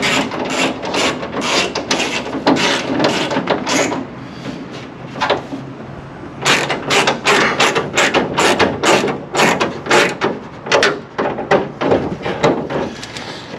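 Ratchet wrench clicking in quick runs as it tightens nuts onto hood-scoop mounting bolts. It pauses for a couple of seconds around a third of the way in, then resumes.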